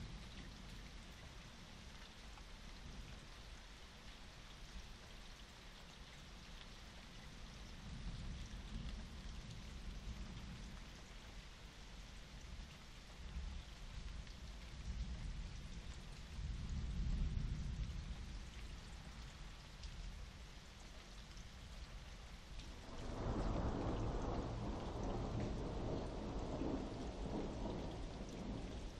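Steady rain with rolls of thunder: a low rumble swells around the middle, and a louder, longer roll of thunder begins about three-quarters of the way in and carries on.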